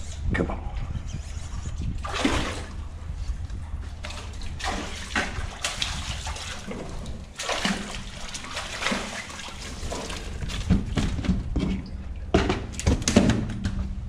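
Water splashing and sloshing in irregular bursts as a hooked sheepshead thrashes at the surface beside a kayak and is scooped into a landing net, the loudest splashes near the end.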